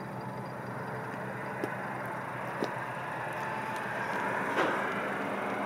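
Škoda Superb's TSI petrol engine idling steadily, heard from outside the car. A few light clicks are heard, and a rushing noise builds over the last second or two.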